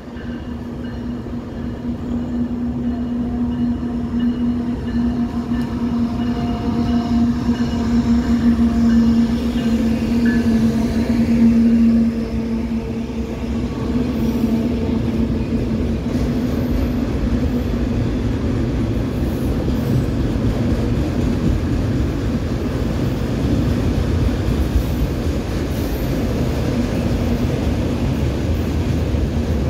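Freight train passing close by: a CSX diesel locomotive goes past with a steady engine drone that swells and then fades about twelve seconds in. After it comes the continuous low rumble of autorack cars rolling past on the rails.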